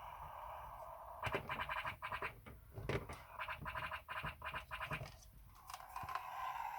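1995 Tonka Star Wars X-wing fighter toy playing its electronic sound effects through its small speaker: several bursts of rapid, crackly pulses, then a steadier tone near the end.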